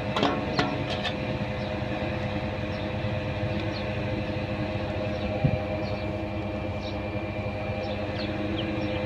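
A steady machine hum with several held tones, like an engine running. In the first second, a few metal clinks as a ladle scrapes chopped tomatoes off a steel plate into a karahi.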